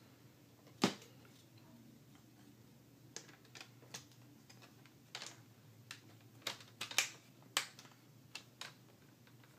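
Scattered sharp plastic clicks and taps as a laptop's plastic screen bezel is handled and lined up on the display lid. There are about a dozen clicks, the loudest about a second in and most of the rest bunched in the middle and later part.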